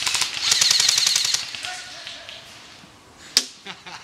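Airsoft M4-style rifle firing a rapid full-auto burst that stops about a second and a half in, followed near the end by a single sharp crack.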